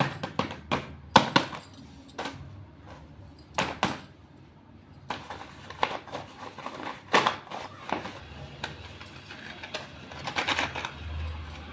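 Slate pencils clicking and clinking against each other and their box as they are handled, in irregular bursts of sharp taps.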